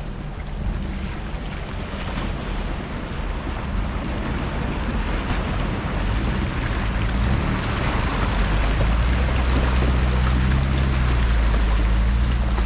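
Off-road vehicle's engine running under way with a steady low hum that grows louder about halfway through, under a constant rushing noise.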